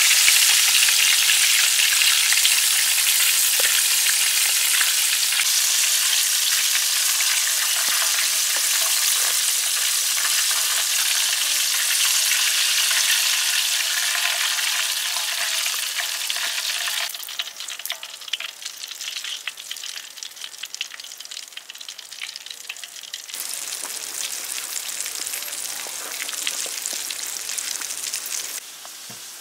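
Battered chicken deep-frying in a wok of hot oil: a steady, loud sizzle that falls to a lighter crackle about two-thirds of the way through, then picks up again.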